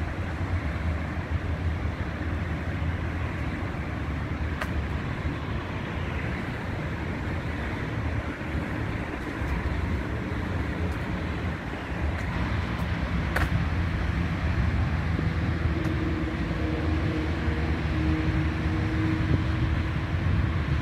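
Steady low rumble of distant road traffic, with a faint hum joining in near the end.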